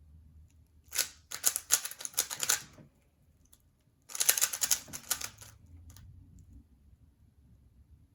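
3x3 Rubik's cube being turned by hand during a timed solve: two quick runs of rapid plastic clicking, each lasting about one and a half to two seconds, with a pause between them and one more click just after.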